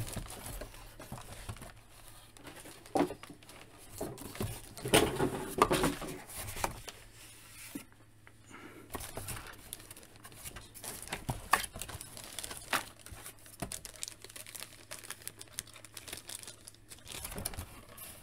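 Clear plastic bag crinkling, with cardboard box packaging rustling and scraping, as a toy is worked out of its box by hand. The handling comes in irregular spurts and is loudest around five seconds in.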